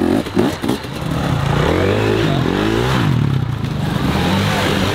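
Off-road dirt bike engines revving: quick throttle blips at first, then a rise and fall in pitch about two seconds in, settling into a steadier run near the end.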